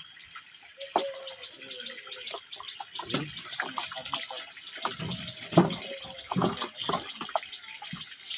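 Live katla carp splashing and flapping in the water of a plastic drum, many short sharp splashes over a steady hiss of running water, with a few duller knocks from handling about halfway in.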